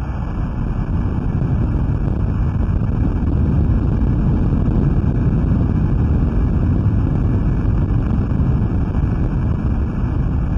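Hydrophone recording of the 2011 magnitude-9.0 undersea earthquake off Honshu, Japan, sped up into the range of human hearing: a deep rumble that swells up over the first second or two, then holds steady.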